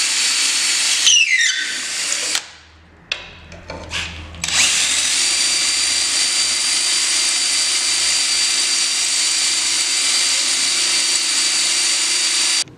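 DeWalt cordless drill running at speed, drilling out the pre-drilled rivet holes in a metal bulkhead brace plate. About a second in its whine falls in pitch as it winds down, and it gives a few short bursts. It then runs steadily again and stops suddenly near the end.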